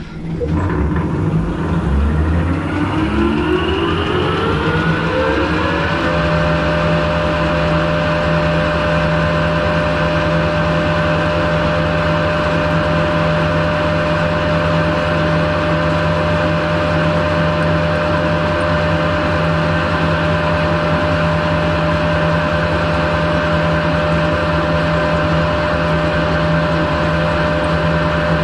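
Metalworking lathe starting up: the motor and gearing whine rises in pitch for about six seconds as the four-jaw chuck spins up, then settles into a steady run.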